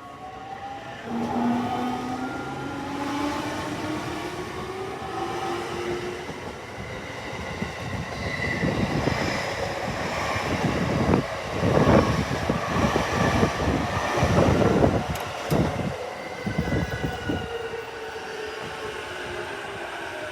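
Electric train passing: its motor whine rises in pitch over the first few seconds, then the wheels clatter over the rail joints, loudest in the middle, before it settles to a steady running hum.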